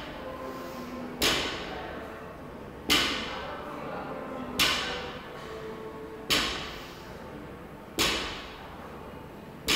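Loaded barbell with bumper plates set back down on a rubber gym floor, one thud with a clank of plates about every second and a half to two seconds, six times, each echoing briefly in the hall.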